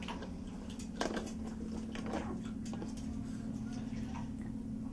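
Small clicks, scrapes and soft wet splashes from a wet Chihuahua puppy pawing and scrabbling at the side of a bathtub, over a steady low hum.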